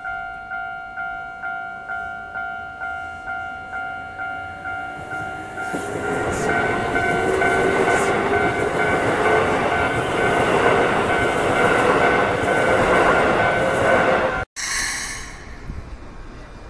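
Japanese level-crossing warning bell beeping about two and a half times a second as a Keikyu train approaches, then the train passes close by with loud running noise over the bell. The sound cuts off abruptly about fourteen seconds in.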